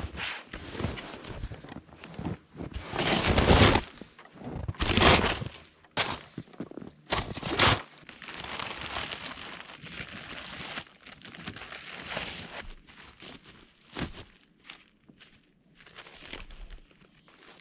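Snow being pushed and scraped with a long-handled snow rake, in irregular crunching, swishing bursts, the loudest about three seconds in, along with footsteps crunching in deep snow.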